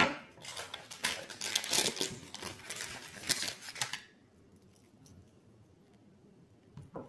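Scissors snipping open foil blind bags and the foil wrappers crinkling and rustling as bag-clip figures are pulled out, starting with a sharp snip; it stops about four seconds in, leaving near quiet with a faint click near the end.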